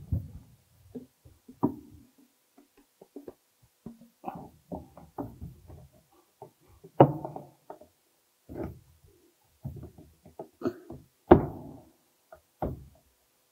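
Irregular knocks and taps of plastic drainage pipe and fittings being handled and fitted together, with a few louder knocks in the second half.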